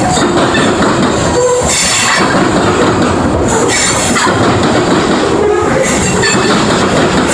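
Freight train's covered hopper cars rolling past close by: a steady, loud rumble and clatter of steel wheels on rail, with higher-pitched swells coming and going every second or so.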